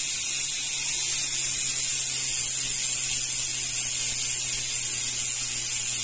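Three-pawl RT freehub on a mountain-bike rear hub coasting on a repair stand, its pawls clicking against the ratchet so fast that they merge into one loud, steady, high buzz, the so-called 'cricket' sound.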